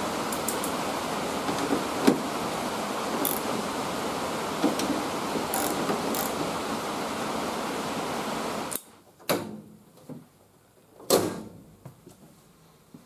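Hand wrench working the hood-hinge nuts: scattered metallic clicks and knocks over a steady rushing background noise, which cuts off suddenly about nine seconds in. After that, two sharp knocks about two seconds apart.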